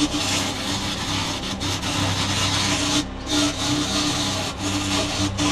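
Wood lathe running with a 24 mm chisel cutting into a spinning wooden blank, roughing it down to handle diameter: a steady motor hum under a dense scraping hiss of the cut. The hiss drops out briefly about three seconds in as the tool comes off the wood.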